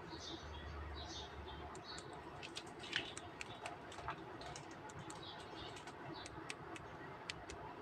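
Light, irregular clicks and taps of small hard plastic pieces being handled, thickest through the middle with one sharper tick about three seconds in, with a few faint high chirps now and then.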